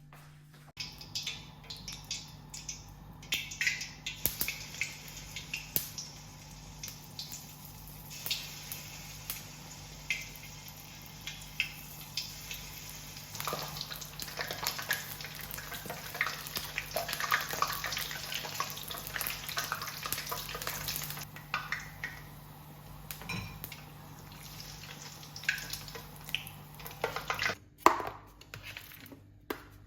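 Water running with dishes and cutlery clinking and clattering, as in washing up at a sink. The running water is heaviest around the middle, with a steady low hum underneath.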